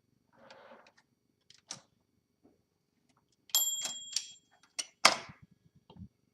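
1956 Olympia SM3 DeLuxe manual typewriter working: a few scattered mechanical clicks, then the margin bell dings about three and a half seconds in. Several sharp clacks follow, the loudest about a second and a half after the bell.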